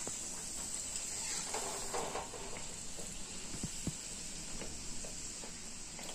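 Sattu-stuffed puri deep-frying in hot oil in an iron kadhai, a steady sizzle, with a couple of light knocks of the steel spatula about halfway through.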